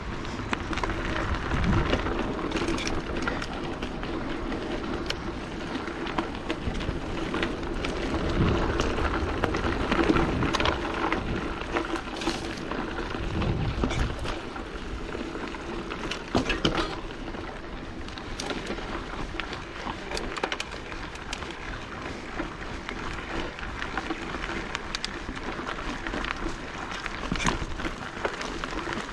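Mountain bike ridden along a dirt bush track: the tyres make a steady noise on dirt and gravel, with irregular knocks and rattles as the bike goes over bumps.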